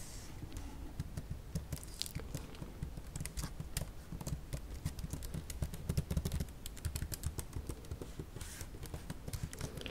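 Long fingernails tapping and scratching on an Acer Aspire 3 laptop's plastic palm rest and keyboard keys: a quick, irregular patter of small clicks over a low rubbing of the hand on the plastic.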